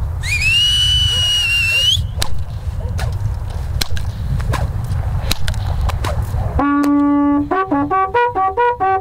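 Wind rumbling on the microphone with scattered sharp cracks of a whip, after a brief high rising whistle-like tone near the start. About two-thirds of the way in, Slovak fujara trombitas (long wooden shepherd's horns without finger holes) come in loudly with a held note, then step between overtone notes in a signal motif.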